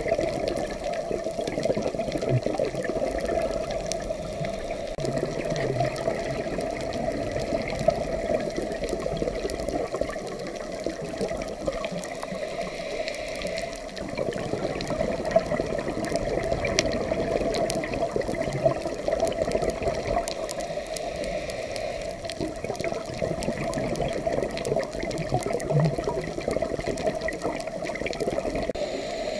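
Underwater noise picked up through a dive camera's housing: a steady, muffled rush of water with many faint clicks over it.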